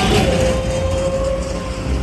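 Large road vehicle, a truck or bus, running close by: a steady engine rumble and road noise, with a faint held tone through most of it.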